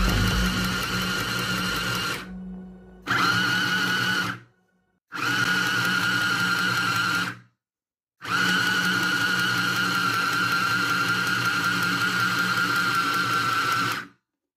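Small Schwartz SWS4530 sewing machine motor running with a steady whine, starting and stopping four times in separate runs, the longest lasting about six seconds.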